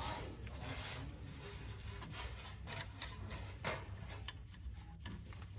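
A ratcheting torque wrench being worked on the brake caliper bolts: a few scattered clicks and light scrapes, irregular rather than a steady ratchet rhythm, over a low steady hum.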